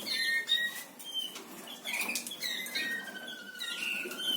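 Caged canaries chirping and calling in short whistled notes and quick upward glides, with one long held whistle in the second half and wings fluttering in the cages.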